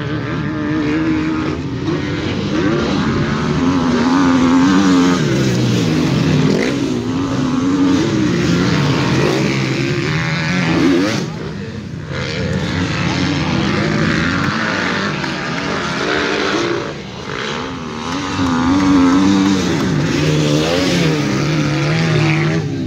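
Motocross bikes racing on a dirt track, their engines revving up and down as they accelerate and shift, with the pitch rising and falling throughout and easing briefly twice.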